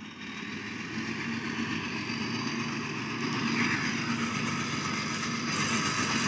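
Caterpillar 12F motor grader's diesel engine running as the grader drives closer, with a steady engine note that grows louder.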